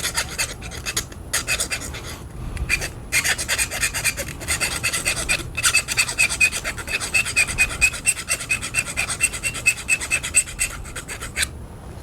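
Quick rasping strokes of a file grinding through the metal tip guide of a fishing rod, being cut away to replace a chipped tip, with a brief pause a few times.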